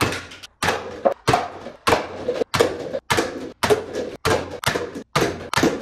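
Toy foam-dart blaster firing shot after shot, about two a second, each shot a sharp snap followed by a short rattle, as paper cups are knocked over.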